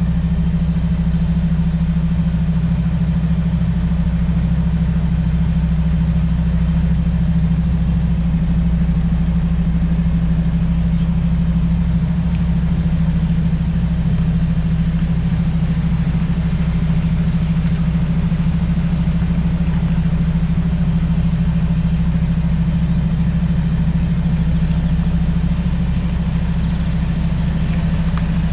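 Diesel engine of a Mercedes-Benz Actros semi-truck running steadily at low revs while the rig creeps through a tight turn, a deep even hum with no revving.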